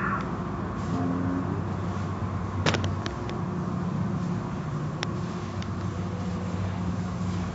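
Steady low drone of car wash machinery, with a sharp click about two and a half seconds in and a fainter one about five seconds in.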